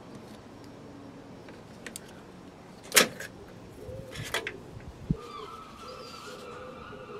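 A spring-loaded battery clamp of the 12-volt oil extractor pump snaps sharply once as it comes off the battery's terminal, with a few smaller clicks and knocks of metal around it. From about five seconds in, geese honk in the background.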